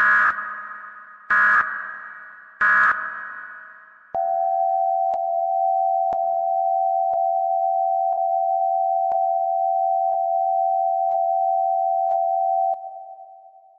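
Electronic beeping sound effect: three short high beeps about a second and a quarter apart, each trailing away in an echo, then a long steady lower tone like a telephone busy or dial tone, with a faint click about once a second, which stops shortly before the end.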